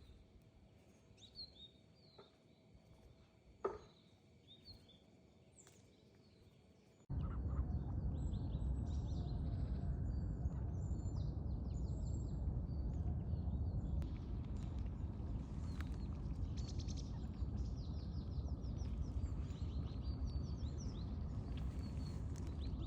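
Small birds chirping and calling in short, high notes. About seven seconds in, a loud, steady, low rushing noise cuts in suddenly, and the birdsong carries on over it.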